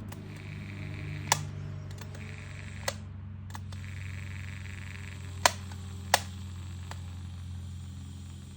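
Sharp plastic clicks and knocks as stand-fan parts are handled and worked loose, five of them spread out, over a steady low hum.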